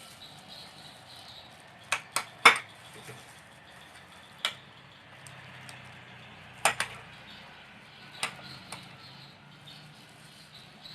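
A kitchen utensil clinking and knocking against a dish, about seven sharp irregular hits; the loudest is a quick cluster of three about two seconds in.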